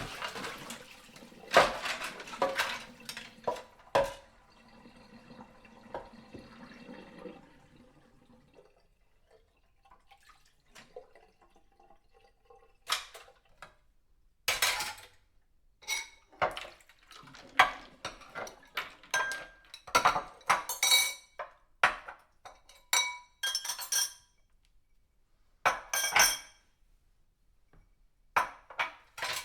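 Dishes being washed by hand: plates, cups and cutlery knocking and clinking against each other in irregular clatters.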